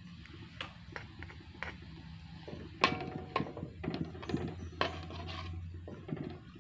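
Metal spatula stirring coconut milk in a metal pot, clinking and scraping against the pot's side and bottom in irregular knocks, the loudest about three seconds in, over a low steady hum.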